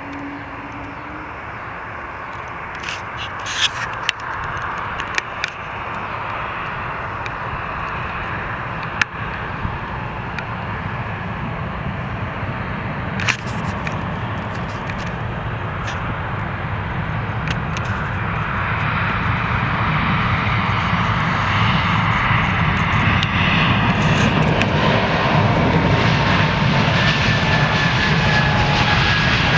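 Airplane engines running as a broad rumble that grows steadily louder. Near the end a faint whine comes in and slides slowly down in pitch.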